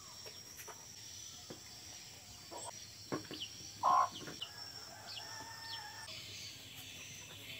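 A hen clucking beside a feeding dog, with one short, loud call about four seconds in. A steady high-pitched insect drone and a few small chirps run underneath.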